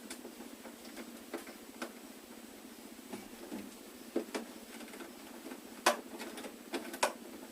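Scattered light clicks and taps from hand work on a plastic storage lid and its hinges, irregular, with the sharpest clicks near the end.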